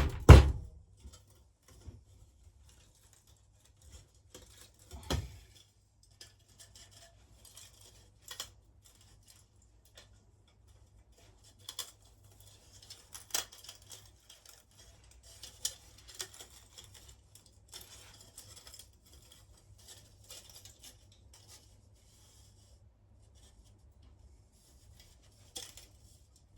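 Sparse, faint clicks, light scrapes and small metallic ticks from parts of an electric melting furnace being handled and worked apart, with one dull knock about five seconds in.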